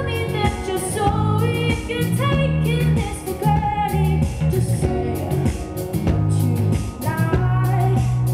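Live band: a woman singing into a microphone over electric guitar, bass guitar and drum kit. Near the end a low note is held steady under the voice.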